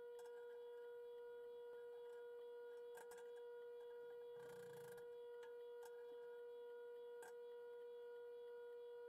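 Near silence: a faint, steady, single-pitch hum, with a few faint clicks and a brief soft rustle about halfway through.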